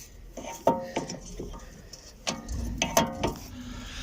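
Ratchet wrench with a 14 mm socket clicking and clinking against metal while the lower brake caliper bracket bolt is undone; a few sharp clicks about a second in, then a quick run of clicks near the end.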